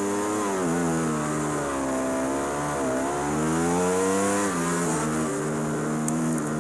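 Ducati superbike's V4 engine accelerating hard under full throttle, the note climbing and then dropping sharply at each of several quick upshifts.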